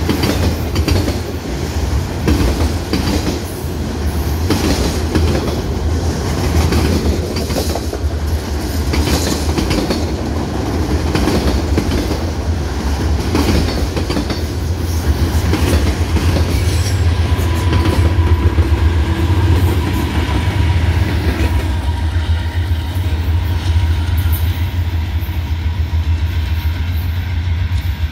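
Freight train of autorack cars rolling past close by: a steady rumble with wheels clicking over the rail joints. A faint whine comes in for a few seconds past the middle.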